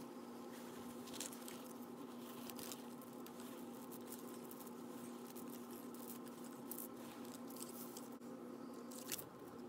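Soft handling sounds: a cotton drawstring dust bag rustling as a metal chain strap is lifted out of it and set down on carpet, with scattered light rustles and faint chain clinks. A steady low hum runs underneath.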